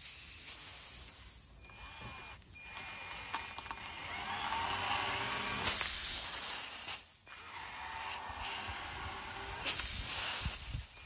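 Drill-driven reamer working a car tire's nail hole to clean it out for a plug, making a hissing rasp that stops and starts several times.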